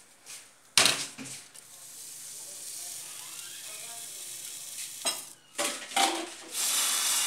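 A sharp clank, then a steady sizzle from the smoking, burnt contents of a foil-lined toaster-oven tray. Metal tongs clatter several times as the charred toast is lifted out, with a louder rush of noise near the end.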